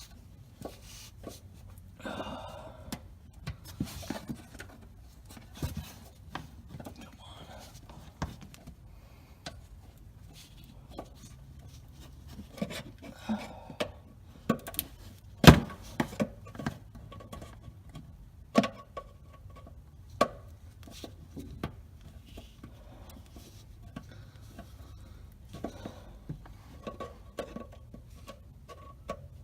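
Flathead screwdriver working at stubborn plastic bumper push clips: scattered small clicks, taps and scrapes of the tool against the plastic, with one sharp click about fifteen seconds in.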